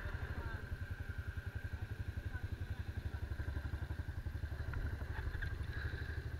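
ATV engine running at low revs, a steady, fairly quiet low-pitched chugging pulse, with a faint steady whine above it.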